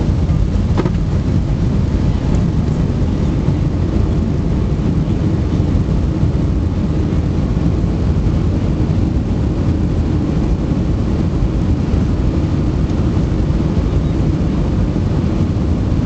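Steady low rumble of a jet airliner's engines and wheels heard inside the cabin as it rolls along the runway after landing, with a brief click about a second in.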